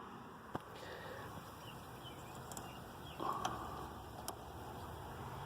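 Quiet outdoor background with a few faint clicks and faint bird chirps in the middle; no machinery running yet.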